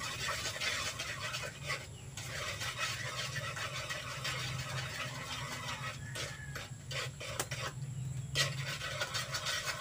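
A metal spoon stirring and scraping around a wok of melting margarine, with a steady low hum underneath and a couple of sharp ticks late on.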